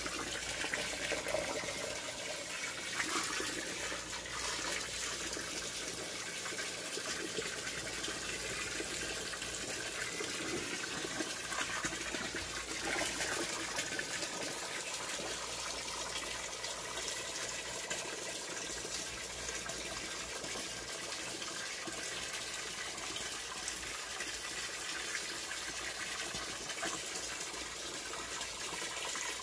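Water from a hose pouring steadily into a plastic bucket of sugar, a continuous splashing gush as the bucket fills for sugar syrup.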